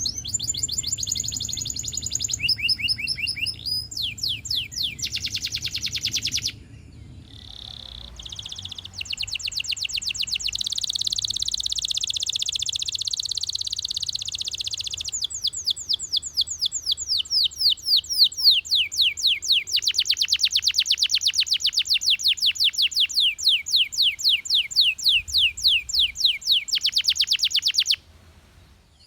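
Russian canary singing a long song of rapid trills, each phrase a fast run of repeated high notes, changing from one trill to the next. It falls quiet for a couple of seconds about seven seconds in, then sings on until it stops just before the end.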